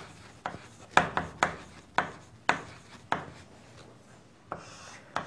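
Chalk writing on a chalkboard: a run of short, sharp taps and scrapes, roughly one every half second, as a word is written out letter by letter.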